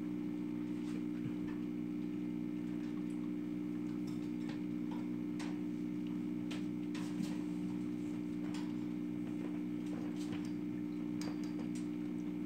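Steady electrical mains hum, with faint irregular clicks and taps as power cords and a plug are handled.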